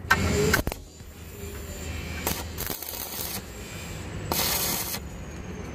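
Electric arc welding on a car's cracked steel rear twist beam: the arc runs in several short bursts with quieter pauses between.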